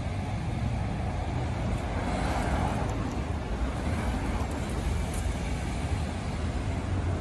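Cars passing on a city street: a steady rush of tyres and engines, with one car swelling louder about two seconds in.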